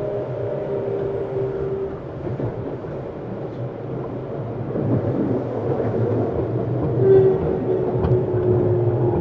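Tokyu 7700 series electric train running, heard from inside the motor car: a steady rolling rumble under a faint whine from the inverter-driven motors that drifts a little in pitch, fading for a couple of seconds and returning louder near the end.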